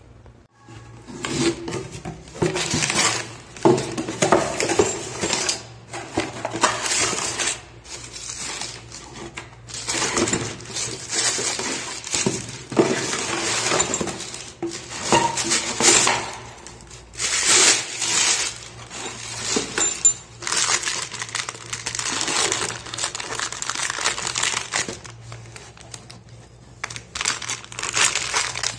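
Cardboard box and plastic wrapping rustling and crinkling as a chrome wall mixer is unpacked by hand, starting about a second in, with irregular clinks of its metal parts.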